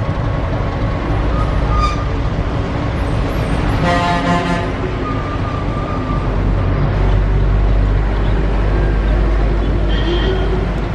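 X-class metre-gauge steam locomotive running slowly with a steady low rumble, and one short whistle toot about four seconds in.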